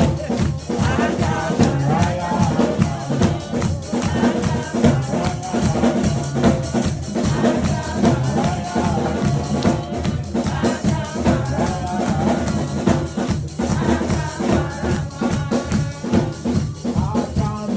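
Music with a steady drum beat and rattling percussion.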